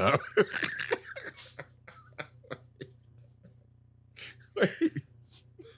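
Men's hearty laughter dying down into short, breathy gasps, with another brief burst of laughter a little over four seconds in.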